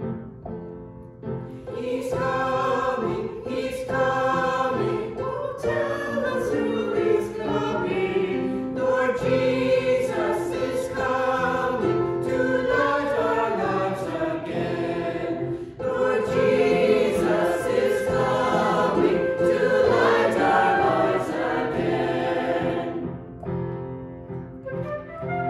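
Small mixed church choir of men and women singing a hymn together over instrumental accompaniment. The voices come in about a second and a half in and stop a couple of seconds before the end, leaving the instrumental line on its own.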